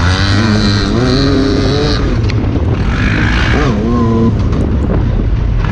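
Side-by-side UTV engine running hard under a steady driving drone. Its revs rise and fall twice, early and about midway through.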